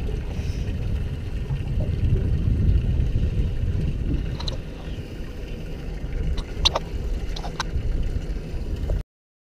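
Low rumbling wind noise on the camera microphone, with a few sharp clicks and knocks about four and a half seconds in and again around seven seconds as gear is handled in the boat's console. The sound stops abruptly near the end.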